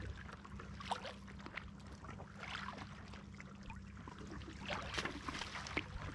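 Sea kayak paddle dipping into calm water, with small irregular splashes and drips running off the blades as the kayak glides along, over a low steady hum.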